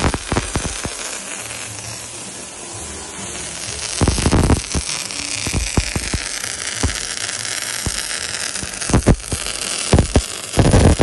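MIG welding arc on a steel excavator dipper arm, a steady crackling hiss broken by frequent sharp pops of spatter. It gets louder about four seconds in.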